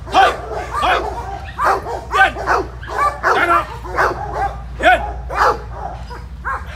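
German Shepherd barking repeatedly at a decoy, about two sharp barks a second, thinning out near the end.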